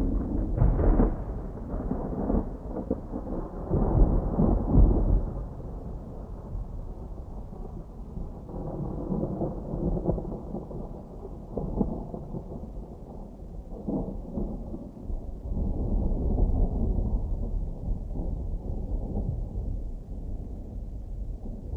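Distant thunder rumbling in long, low rolls that swell and fade, loudest about four to five seconds in, over a steady patter of rain.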